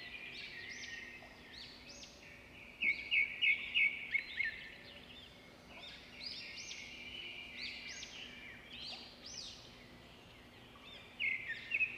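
Several small birds chirping and calling over one another, with clusters of quick, louder chirps about three seconds in and again near the end.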